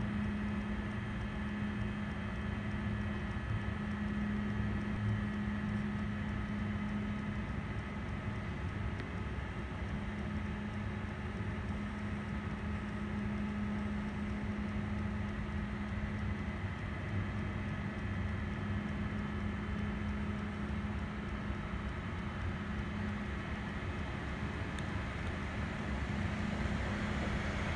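Steady mechanical hum: a low, even drone with a few faint high whines over it, holding the same level throughout.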